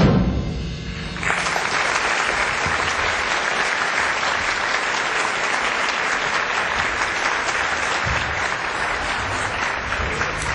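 The music's last loud note dies away over the first second, then a theatre audience starts applauding and keeps up steady clapping.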